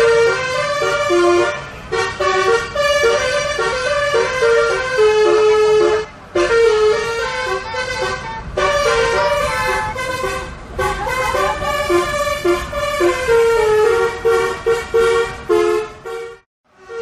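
Indonesian 'telolet' bus horn, a set of multi-tone air horns, playing a fast tune of short and held notes that step up and down in pitch. It cuts out briefly near the end, then starts again.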